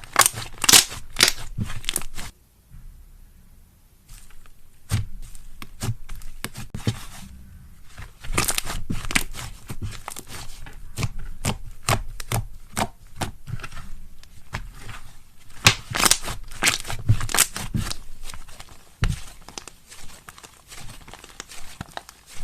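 Slime being squeezed and pressed by hand, with dense crackling and popping clicks. The clicks go quiet for a couple of seconds early on, then resume.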